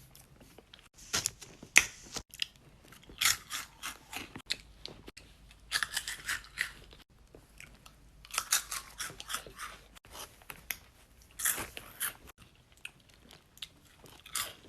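A person chewing crunchy food close to the microphone: crisp crunches come in groups of about a second, with short pauses between bites.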